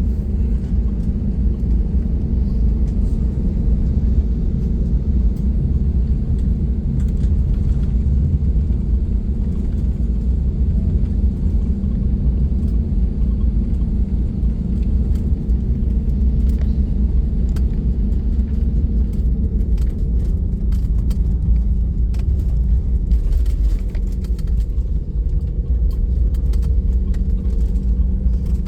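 Steady low rumble of an airliner's engines and airframe heard from inside the passenger cabin, holding an even level without rising or falling.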